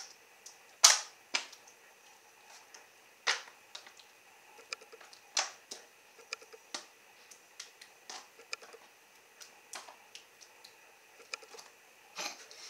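Spatula scraping and tapping in a disposable aluminium foil pan while spreading meat sauce over the bottom: irregular sharp clicks and scrapes, the loudest about a second in.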